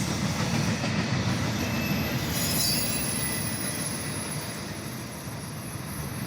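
BNSF intermodal freight train rolling past on the rails: a steady low rumble with faint, thin, high wheel squeal above it, easing off slightly toward the end.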